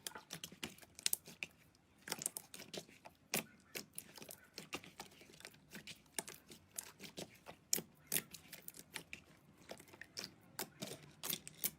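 Slime being squeezed and worked by hand, making an irregular run of sharp crackling clicks and pops, several a second.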